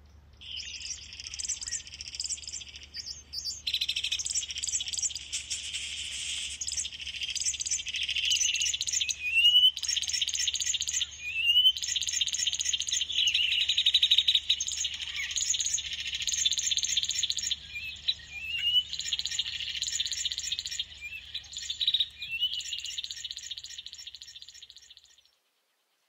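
Birds chirping and singing in a dense chorus, with short rising whistled notes now and then, over a faint steady low hum. The sound cuts off near the end.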